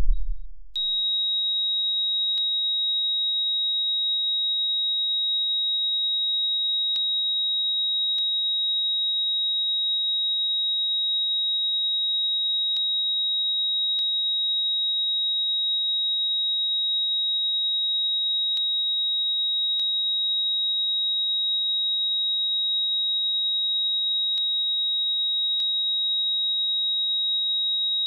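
Heart-monitor flatline tone: one steady, unbroken high beep that starts about a second in, the sign that the heart has stopped. The last deep heartbeat thuds die away just before it begins.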